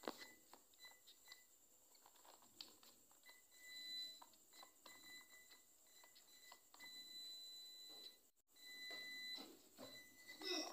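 Faint high electronic beeping that cuts in and out in short stretches over near silence, with a few light clicks.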